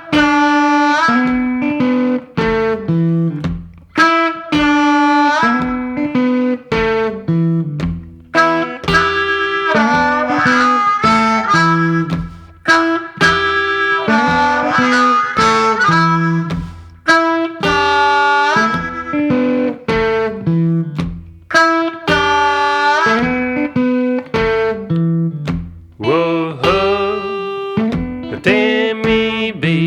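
Instrumental blues break: a harmonica solo with bent notes over a repeating guitar riff and a steady beat.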